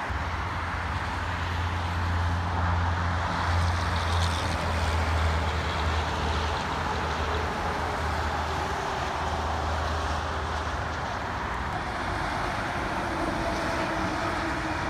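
Highway traffic: steady tyre and engine noise, with the low drone of a heavy truck's diesel engine going by, which fades out after about eleven seconds.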